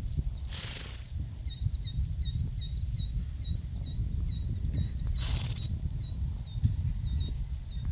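Outdoor pasture ambience: wind rumbling on the microphone, with short high chirps repeating a few times a second and two brief hissing swells, one near the start and one past the middle.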